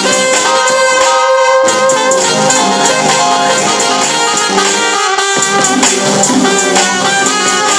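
Loud instrumental music: held melody notes over a continuous high, jingling shimmer.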